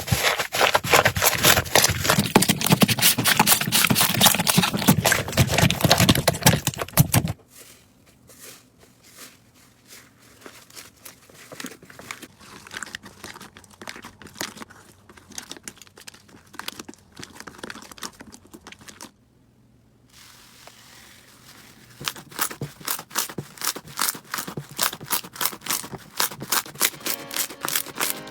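Slime being squeezed and worked by hand, crackling and popping: dense and loud for the first seven seconds or so, then softer scattered clicks, a short break, and a fast regular run of clicky pops near the end.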